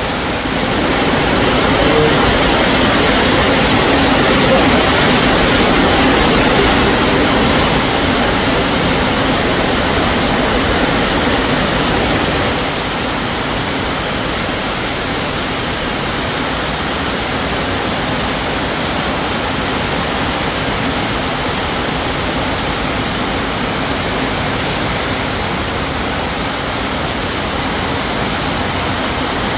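Heavy rain pouring down in a steady dense hiss, somewhat louder for the first dozen seconds and easing slightly after that.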